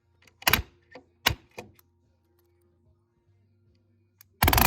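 Palm nailer driving short nails into wood: a few single knocks in the first couple of seconds, then near the end a rapid, loud hammering burst that sounds like machine-gun fire. Faint background music underneath.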